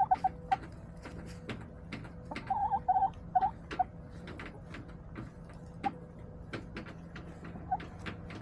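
Backyard hens in their coop: irregular sharp taps and clicks, with short bursts of soft clucking near the start and again about two and a half to four seconds in.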